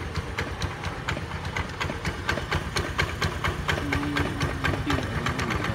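A Honda scooter's single-cylinder engine idling steadily, with a rapid, even ticking over its low hum.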